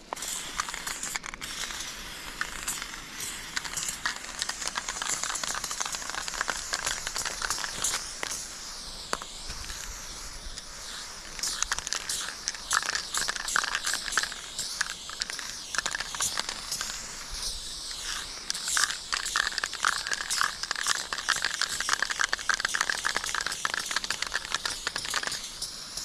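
Aerosol spray paint can hissing as paint is sprayed onto a concrete wall, with dense crackling throughout that grows busier and louder in the second half.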